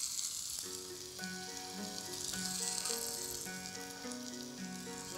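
Lamb cutlets sizzling on a hot electric contact grill, a steady high hiss. Light background music with a simple run of notes comes in about half a second in.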